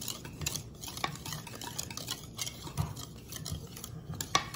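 Wire whisk stirring dry cake ingredients (flour and sugar) around a ceramic mixing bowl, a quick run of scraping strokes that stands in for sifting. One sharper knock of the whisk against the bowl comes near the end.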